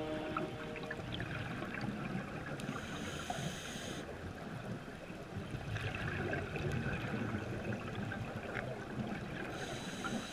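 Underwater ambience picked up through a camera housing: a steady, muffled wash of water noise with scattered faint clicks and crackles.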